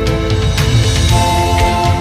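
Background music: held melodic notes over a pulsing low bass, changing note about a second in.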